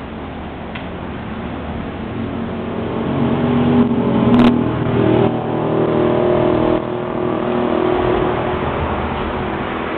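A motor vehicle's engine passing by, growing louder to a peak about four to six seconds in and then fading away. A single sharp click about four and a half seconds in.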